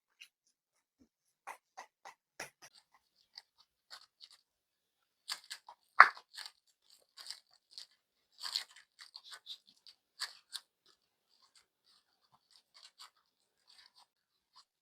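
Scattered short crinkles and clicks of packaging being handled and opened, with one louder snap about six seconds in.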